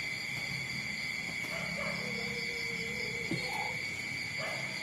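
A puppy gives one drawn-out, level whine lasting about a second, midway through, over a steady high-pitched buzz.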